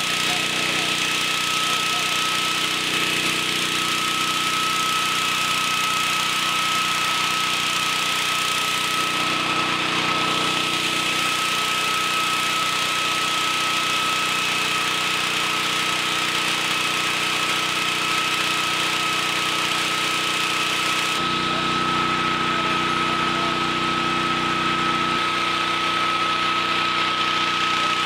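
Small gasoline engine running steadily at a constant speed, with a steady high whine over its hum. The low part of the sound changes a little about three quarters of the way through.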